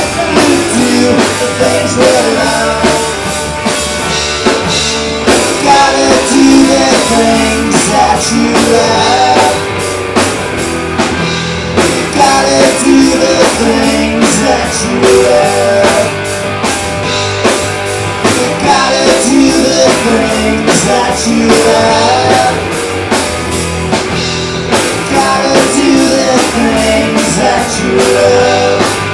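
Live rock band playing loud: distorted electric guitar, bass guitar and drum kit with a steady beat, with singing over it.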